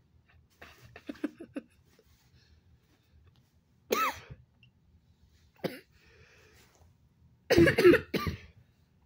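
A person coughing and clearing their throat: a quick run of short bursts about a second in, a loud cough about four seconds in, and a harder, louder fit of coughing near the end.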